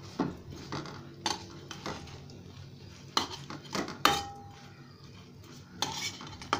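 A steel spoon knocking and scraping against a frying pan while turning whole small brinjals frying in oil: about five short clinks, one a little past the middle ringing briefly.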